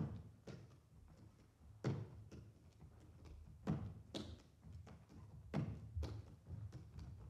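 Slow percussive music: deep struck drum-like hits about every two seconds, each ringing out and followed by a lighter tap, over a steady low drone.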